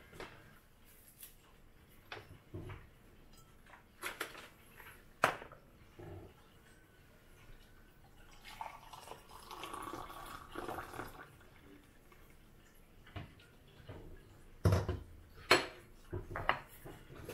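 Water poured from an electric kettle into a glass for about three seconds midway through, between a few sharp knocks and clinks on the counter; the loudest knocks come near the end.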